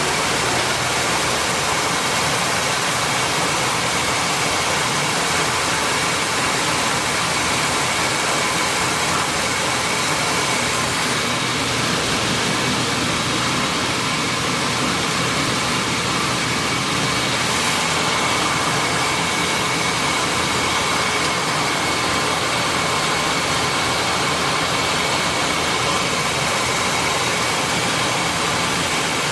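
PD2 maize milling machine running steadily: a loud, even machine noise with a faint constant whine.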